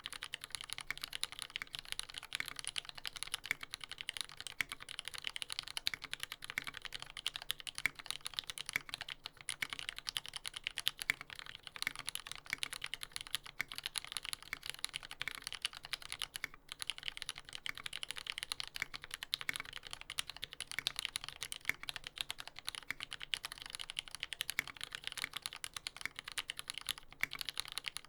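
Continuous fast typing on a TX75v2 mechanical keyboard with lubed retooled black linear switches on a brass plate: a dense stream of key clacks with only a few momentary pauses.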